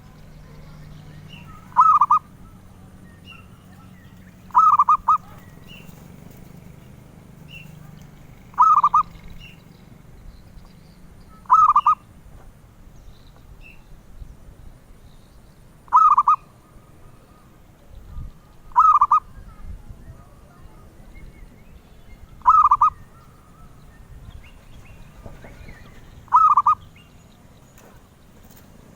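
Zebra dove (perkutut) cooing: a short, rolling coo repeated eight times, about every three seconds. Faint high chirps sound between the coos.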